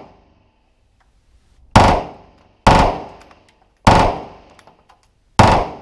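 Glock 18 9 mm machine pistol in a carbine chassis firing four loud, sharp reports about a second apart, each ringing out in the reverberant indoor range.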